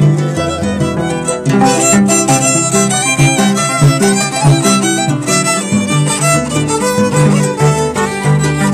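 Instrumental passage of Andean music: a violin plays the melody over the plucked bass notes of a harp.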